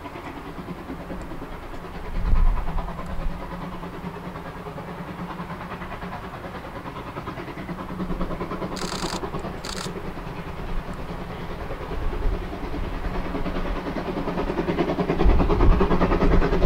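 Fichtelbergbahn narrow-gauge steam locomotive working a train in the distance, its exhaust chuffing in a fast, steady rhythm that grows louder as it approaches. Low rumbles come about two seconds in and again near the end.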